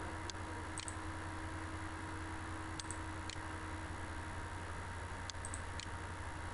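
Computer mouse clicking a few times, in pairs about half a second apart, over a steady low electrical hum and hiss.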